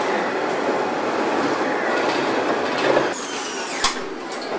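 Steady clattering machinery noise of a car factory production line. About three seconds in it drops to a quieter hall noise, with one sharp clank shortly after.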